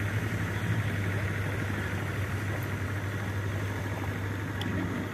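A steady low droning hum with a noisy hiss over it, like an engine running at idle, unchanging throughout.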